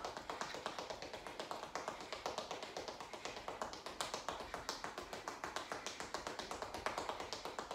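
Sneakers tapping quickly on a tiled floor in a fast-feet 'tapping' drill, a rapid, even run of light footfalls.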